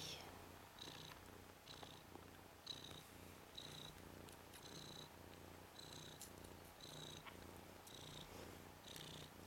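Ragdoll mother cat purring softly while nursing her kittens. The purr swells and fades about once a second with her breathing.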